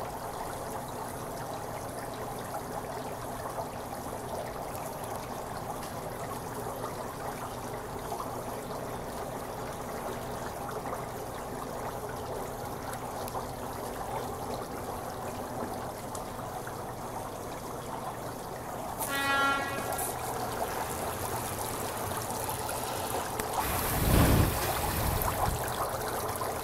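Dry ice bubbling in water in a kitchen sink, a steady watery trickle and fizz. A short rattling squeak comes about three-quarters of the way through, and a loud low thump follows a few seconds later.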